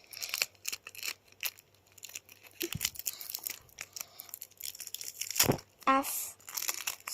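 Paper crinkling and clear sticky tape crackling as they are handled and taped together, a run of short irregular crackles with a soft thump about five and a half seconds in.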